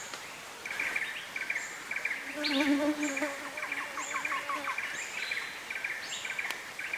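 Tropical forest ambience: insects buzzing in repeated short trills, with birds giving short high whistles throughout. In the middle a run of downslurred calls rises over a low wavering call, which is the loudest sound, from about two to nearly five seconds in.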